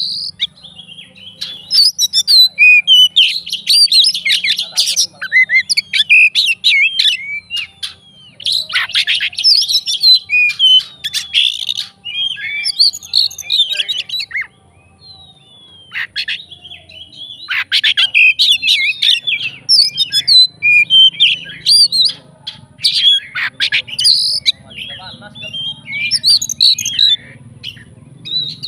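Oriental magpie-robin (kacer) singing a loud, varied song of quick whistles and chattering phrases in bursts with short pauses, its song full of mimicked calls of other birds.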